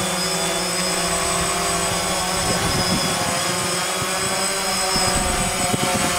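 DJI Phantom quadcopter's four electric motors and propellers buzzing steadily as it hovers close by, a whine of several steady tones.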